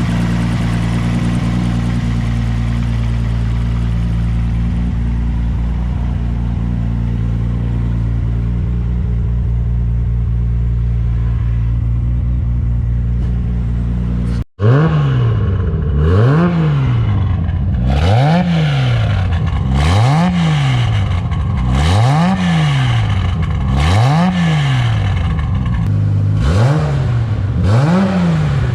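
Nissan S14 Silvia's swapped RB30 straight-six engine idling steadily. About halfway through, after a brief cut, it is revved repeatedly in quick throttle blips, rising and falling in pitch about once a second.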